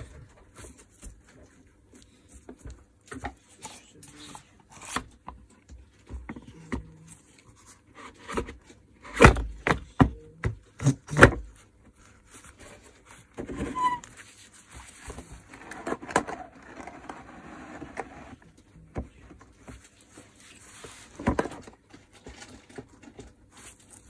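Plastic knocks, clicks and rubbing as the pleated cartridge filter of a Makita VC2512L vacuum cleaner is pressed onto its housing and its plastic cover fitted. Several louder knocks come in the middle, followed by a few seconds of scraping and another sharp knock near the end.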